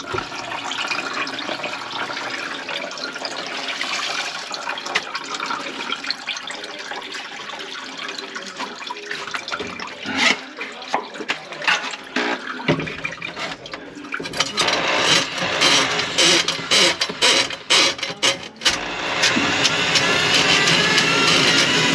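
Water running and draining through a kitchen sink, with a run of sharp clicks and clatter partway through, then a louder steady rush of water near the end.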